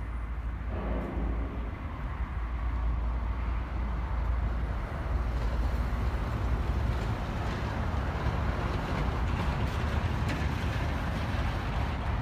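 A Carter CT10 mini excavator's small diesel engine running steadily, growing louder and fuller from about five seconds in.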